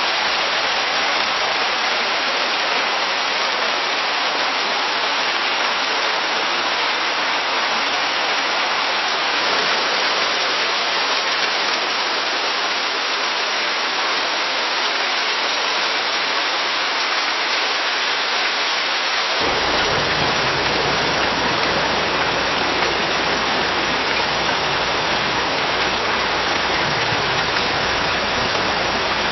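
Steady hiss of rain falling in a forest. The recording changes to a different rain take about nine seconds in, and again about nineteen seconds in; the last take has more low rumble beneath the hiss.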